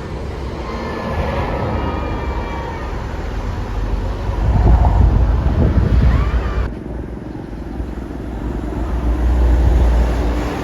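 Road traffic passing, a deep engine rumble that swells twice, about four seconds in and again near the end.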